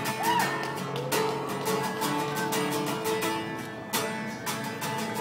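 Acoustic guitar strummed in an instrumental passage between sung lines, chords ringing on between the strokes.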